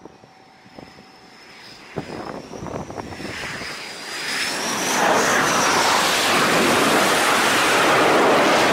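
F/A-18 jet fighter on landing approach to the carrier, its engine noise growing from faint to loud, with a high turbine whine wavering in pitch. From about five seconds in it becomes a steady, loud jet rush.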